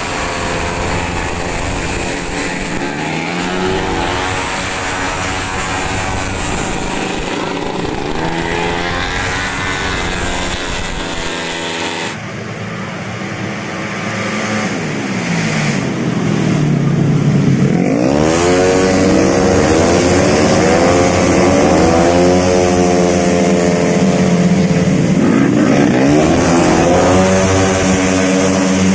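Tuned 131cc automatic racing scooters running hard on a circuit, their engines' pitch sweeping up and down as they accelerate and pass. The sound changes abruptly about twelve seconds in and grows louder from about eighteen seconds, with several engines overlapping.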